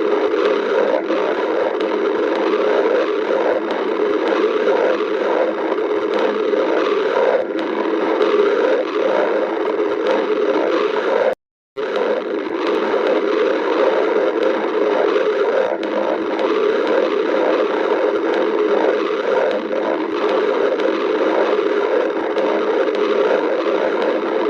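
Human stomach growling: a continuous, close-up gurgling rumble that breaks off completely for a moment about halfway through, then carries on.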